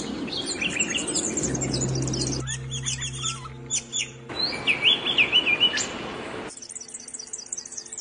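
Small songbirds chirping and singing: many short high chirps and trills, with a louder warbling phrase about halfway through. The background changes abruptly every second or two, as short recordings are cut together.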